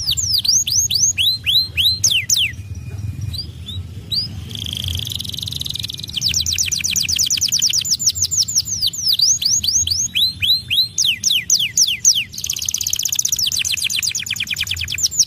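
White domestic canary singing a loud, continuous song. It runs fast trills of falling whistled notes, slower runs of separate downslurred notes, and a buzzy rolling phrase about five seconds in.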